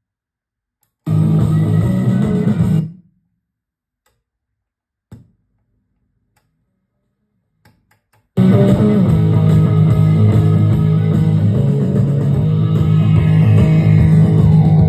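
Guitar rock music played through a 1983 SEOM SA-4160 stereo amplifier during a playback test. A short snatch of music about a second in cuts off after two seconds, a faint click comes in the silence that follows, and the music starts again about eight seconds in and keeps playing.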